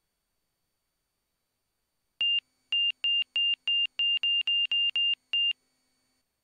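A run of about eleven short, identical high-pitched electronic beeps over roughly three seconds, spaced unevenly and coming a little faster toward the end. They are an audio alert from the airplane's avionics heard through the headset intercom feed, with no engine sound underneath.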